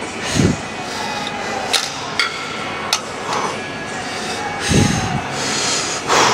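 Metal gym weights clanking: a few sharp metallic clinks and two dull thumps over the steady hum of the room.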